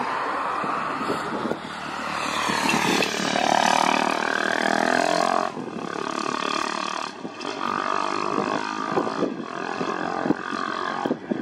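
Airbus A320 jet engines at climb power as the airliner departs, a steady roar with a crackling rumble, a little fainter in the second half.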